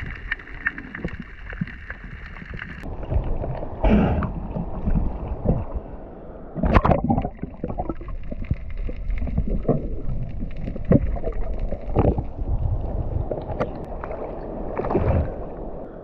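Muffled underwater water noise from a diver swimming and pulling in a speargun line: gurgling, swirling water with scattered sharp knocks and clicks, the loudest about seven seconds in.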